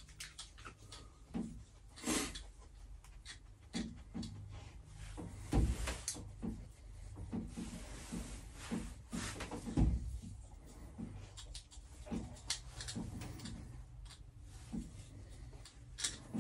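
Irregular clicks, knocks and clatter of tools and plumbing parts being handled, with two heavier thumps about five and a half and ten seconds in.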